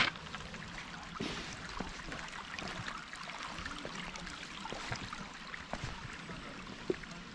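Creek water running steadily over rocks, with scattered light knocks close by.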